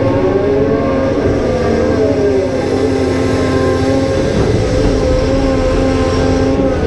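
Cat 390F excavator's diesel engine and hydraulic pump working hard under load. Several whining tones slide up and down in the first few seconds as the levers are worked, then hold steadier.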